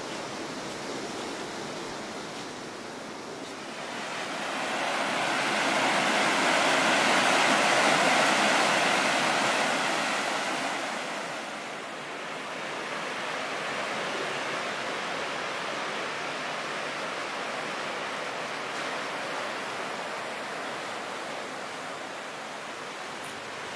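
Steady rush of flowing river water, swelling louder for several seconds around the middle and then settling back.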